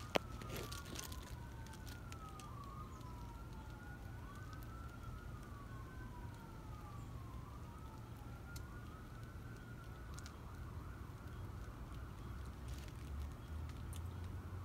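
An emergency vehicle siren wailing, its pitch sweeping up and down about every two seconds, then changing to a faster, steadier warble about ten seconds in. A single sharp click just after the start is the loudest sound.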